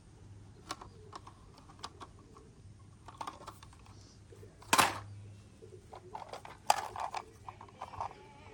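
Hard plastic toy semi-truck and trailer being handled, with the trailer taken off the cab: a scatter of light plastic clicks and knocks, with two louder clacks about five seconds and just under seven seconds in.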